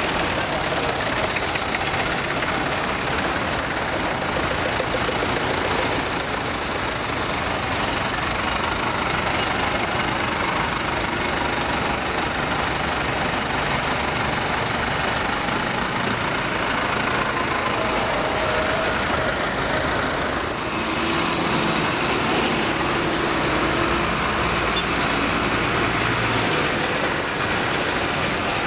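Diesel engines of a line of tractors running as they drive past one after another, a small vintage tractor followed by a large modern John Deere, at a steady level.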